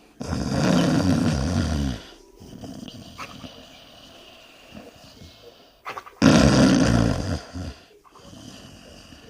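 A sleeping dog snoring: two long, loud snores, the second about six seconds in, each with a rapid fluttering rattle typical of the lips flapping with the breath. Fainter breathing between them.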